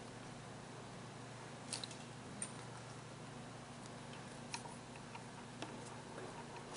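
A few faint, scattered clicks and rustles of hands handling yarn and crochet work while a new colour of yarn is picked up, over a steady low hiss.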